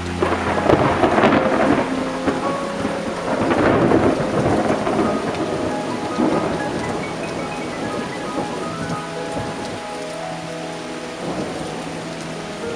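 Steady heavy rain with a thunderclap rumbling in about half a second in, swelling again around four seconds and then fading away under the rain.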